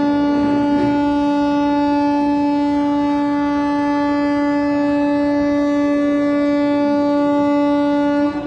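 Railway locomotive horn sounding one long, steady blast on a single held note, cutting off sharply near the end.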